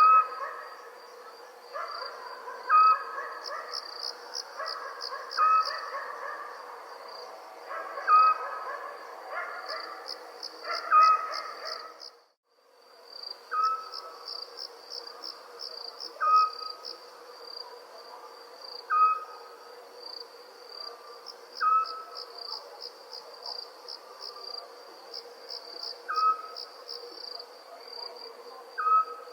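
Night ambience of crickets chirping steadily in pulsing trills, with a short animal call repeating about every two and a half to three seconds. The sound cuts out completely for a moment a little before the middle.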